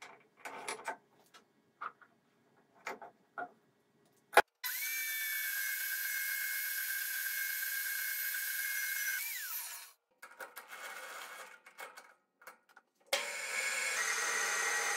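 Small BS-85 metal-cutting band saw switched on with a click and cutting through a metal rod for about five seconds, its tone falling as it winds down. Before it come clanks of the rod being set in the saw's vise. Near the end a metal lathe starts turning.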